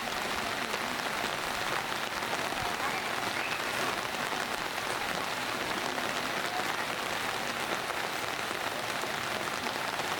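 Steady rain falling, an even pattering hiss that holds at one level.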